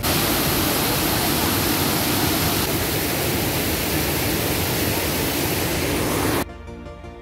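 Waterfall: a steady, even rush of falling water that cuts off abruptly about six and a half seconds in, leaving a much quieter stretch.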